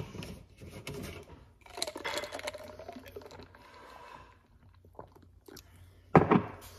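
Close mouth sounds of sipping iced coffee through a straw and swallowing, with scattered small clicks and wet mouth noises, and a louder, brief burst of noise about six seconds in.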